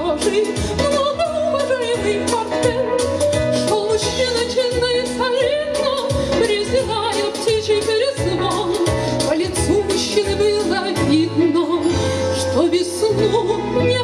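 Song music: an instrumental accompaniment with a rhythmic bass line under a high, wavering melody, with female voices singing.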